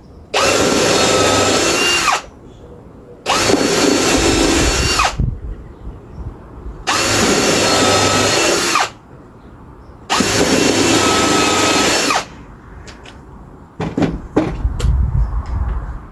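Power drill running at a steady speed in four bursts of about two seconds each, working screws or holes into wood. A few light knocks and clicks follow near the end.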